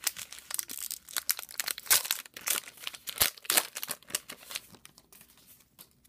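A baseball-card pack wrapper crinkling and tearing as it is handled and opened, in a dense run of irregular crackles that thins out near the end.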